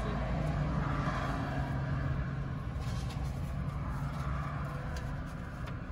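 Car engine idling, heard from inside the cabin as a steady low hum, with a few faint rustles or ticks of paper being handled.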